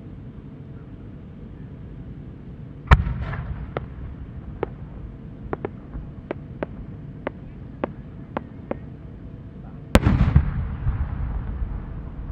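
Japanese aerial firework shell, a four-ring-core chrysanthemum with rising effects, fired from its mortar with a sharp bang about three seconds in. About ten small sharp pops follow as it climbs. Near the end the shell bursts with a loud boom that rolls on as a rumbling echo.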